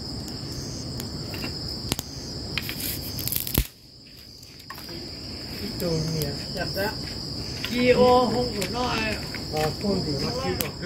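Crickets chirping steadily at night, one continuous high trill. From about six seconds in, people's voices talk over it.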